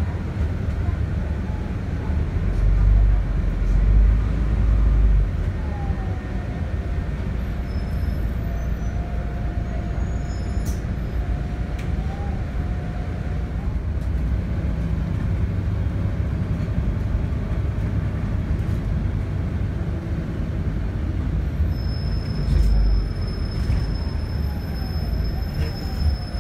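Double-decker bus heard from inside the passenger cabin: a steady low engine and cabin rumble, swelling louder a few seconds in and again near the end, with a faint wavering whine partway through and a thin high steady tone coming in near the end.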